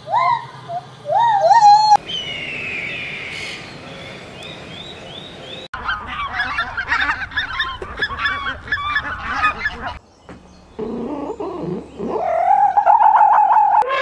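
White-handed gibbons hooting, a quick run of rising calls, for the first two seconds. Then a flock of greater white-fronted geese honking together through the middle, and near the end a long animal call that rises and then holds.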